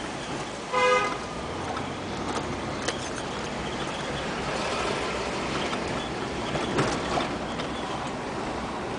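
A car horn toots once, briefly, about a second in. Steady road and engine noise of a moving car, heard from inside the cabin, runs under it.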